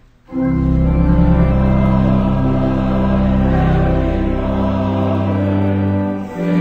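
Choral hymn music with long held chords, cutting in abruptly just after the start and changing chord after a brief dip near the end.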